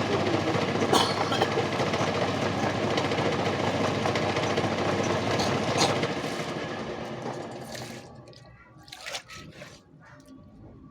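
Homemade PVC feather plucker driven by a used washing-machine motor, running with water churning and a few knocks, then running down and stopping about six to eight seconds in.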